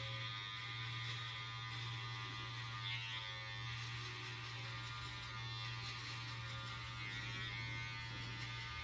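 Cordless hair trimmer buzzing steadily as it cuts close against the hair at the side of the head, held upside down to mark the line of a high fade.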